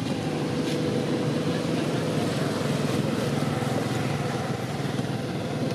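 A small engine running steadily, a constant droning hum with no change in pitch.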